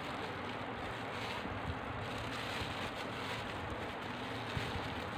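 Steady low rushing background noise with a faint hum, and a faint tick about four and a half seconds in.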